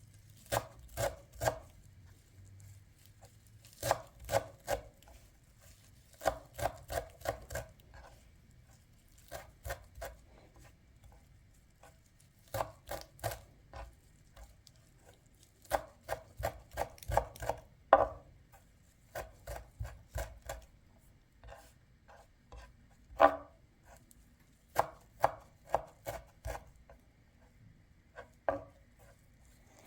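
Knife chopping food on a cutting board, in short runs of several quick strokes with brief pauses between them, one stroke a little past halfway standing out louder than the rest.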